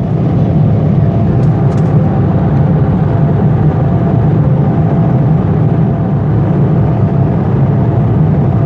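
Steady, loud vehicle rumble with a faint hum above it; it starts and cuts off abruptly.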